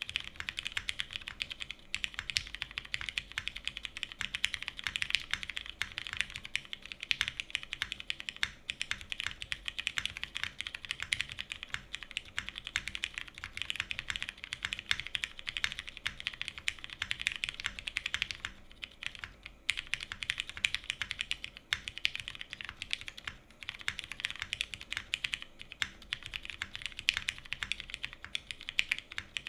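Fast typing on a TGR Jane v2 mechanical keyboard with lubed and filmed Cherry MX Brown tactile switches in a top-mounted polycarbonate half plate, capped with GMK doubleshot ABS keycaps. It makes a dense, continuous clatter of keystrokes, broken by two short pauses past the middle.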